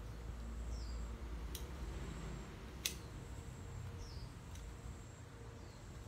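Fresh leafy branches being handled and stripped of their leaves, with three sharp clicks about a second or more apart. Short, falling bird chirps sound a few times in the background.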